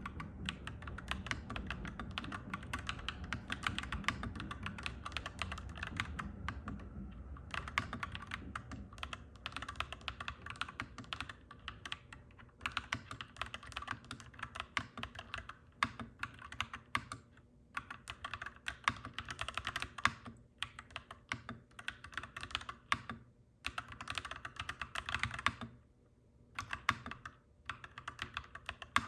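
Clacky mechanical keyboard being typed on in quick runs, broken by short pauses several times. A low rumble sits underneath for the first several seconds and then fades.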